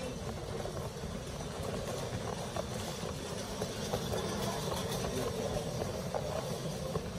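Station underpass ambience: a steady low rumble with scattered footstep clicks on the hard floor.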